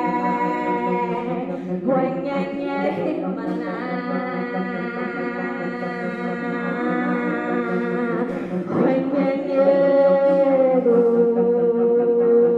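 A woman singing a cappella, with no words heard: long held notes layered over one another so they sound like a small choir. About two-thirds of the way through a new, louder note comes in and is held.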